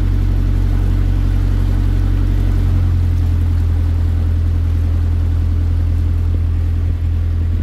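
The water taxi's engine running under way with a steady low drone; its note shifts about three seconds in.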